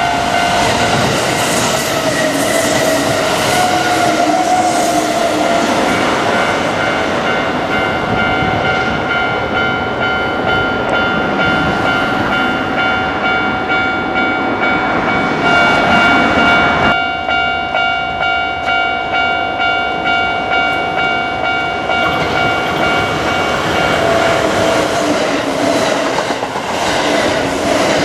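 Electric commuter train of the Kintetsu Osaka Line passing over a level crossing, with wheel clatter over the rail joints, while the crossing's warning bell rings on in steady pitched tones.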